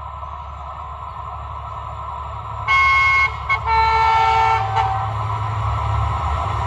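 Approaching freight locomotive sounding its horn about three seconds in: a short chord, then after a brief break a longer, lower-pitched chord. Under it, the rumble of the train grows louder as it nears.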